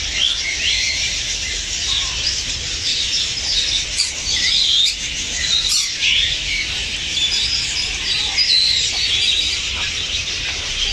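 Captive parrots and parakeets chirping and squawking, many short high calls overlapping, over a low rumble.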